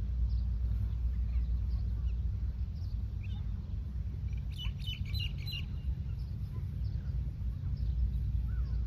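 Small birds chirping now and then, with a quick run of chirps about halfway through, over a steady low rumble.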